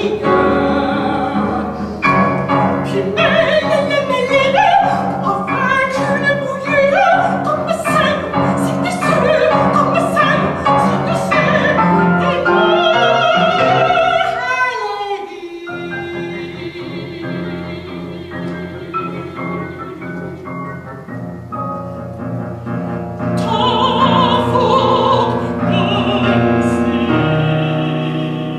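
Mezzo-soprano singing an operatic art song in French with Fazioli grand piano accompaniment, voice and piano both fast and animated. About halfway through the music drops to a quieter stretch, then the voice comes back loud near the end.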